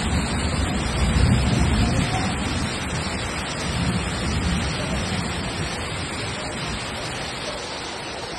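Heavy rain pouring down, a dense steady rushing hiss, with a low rumble that is strongest at first and slowly eases off.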